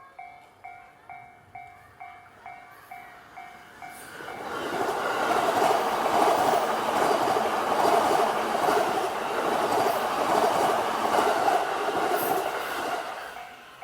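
Level-crossing warning bell ringing about twice a second, then a train passes over the crossing from about four seconds in. The train's rumble and wheel clatter drown out the bell and fade away near the end.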